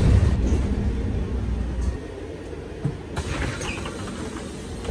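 City bus running, heard from inside the cabin: a steady low engine and road rumble that eases about two seconds in.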